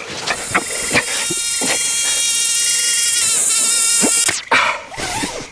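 Mosquito whining close by, a high buzz that wavers slightly in pitch, cut off about four seconds in by a short loud swat.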